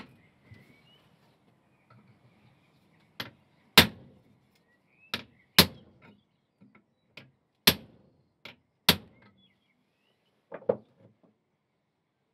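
Hammer blows driving a turned wooden scythe nib handle down onto the iron spike of its nib iron, struck through a hollow steel drift: about ten sharp, ringing strikes at an uneven pace, with a quick cluster of lighter knocks near the end.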